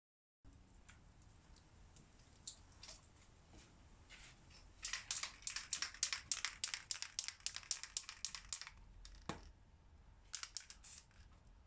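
Aerosol spray paint can being shaken, its mixing ball rattling inside in a fast run of sharp clicks for about four seconds. A single dull thump follows, then a few more rattles near the end.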